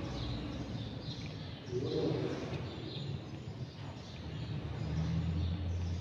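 Small birds chirping, short calls repeating every second or so, over a low background hum that swells and fades.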